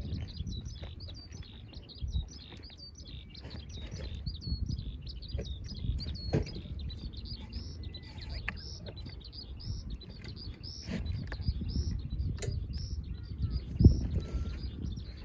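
Small birds chirping repeatedly, several short notes a second, over the scattered crackles and pops of a wood campfire and a low rumble. One louder sharp crack comes near the end.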